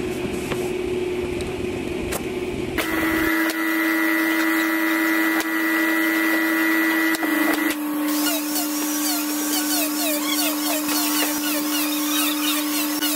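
High-speed electric wood router motor whining steadily, with a small jump in pitch about three seconds in and again about eight seconds in.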